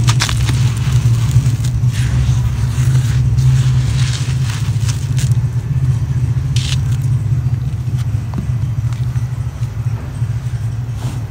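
A dry chunk of white concrete texture crushed in the hand, crackling and crunching as it breaks into grit and dust, sharpest right at the start and recurring until about two-thirds of the way through. A steady low hum runs underneath throughout, louder than the crumbling.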